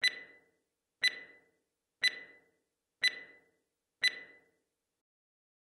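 Five sharp ticks, one a second, each with a brief high ring that fades within about half a second, like a clock or countdown tick sound effect. The fifth tick comes about four seconds in, and nothing follows it.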